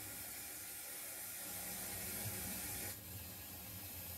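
0 gauge model steam locomotive giving a steady hiss of steam over a low rumble; the hiss cuts off sharply about three seconds in.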